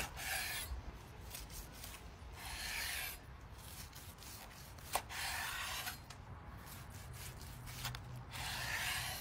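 Knife sawing through the charred crust of a thick grilled steak on a cutting board: four scratchy slicing strokes a few seconds apart, with two sharp clicks, one at the start and one about five seconds in.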